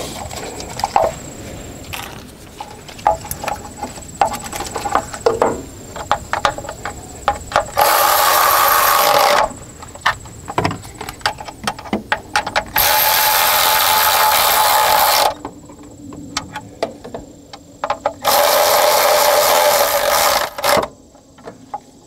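Cordless electric ratchet running in three bursts of about two to two and a half seconds, tightening the ECM mounting bolts on a Cummins ISB diesel engine, with clicks and knocks of the socket and tools against the engine between the bursts.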